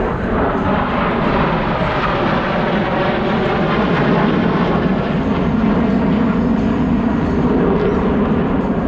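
Loud, steady jet engine noise from U.S. Navy Blue Angels F/A-18 Hornet jets flying past.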